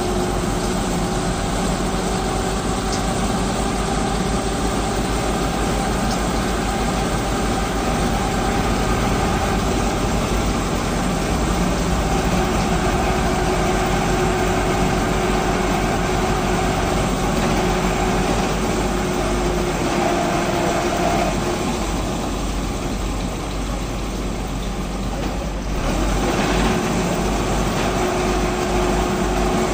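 Heavy vehicle engine running steadily at a constant speed, with a steady hum. The sound thins for a few seconds about two-thirds of the way through, then comes back.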